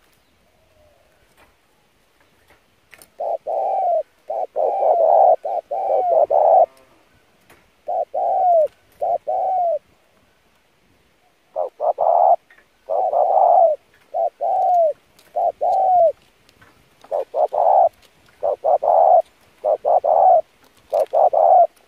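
Spotted dove cooing in repeated phrases of several coos each, starting about three seconds in, with short pauses between the phrases. Some notes slide down in pitch at the end.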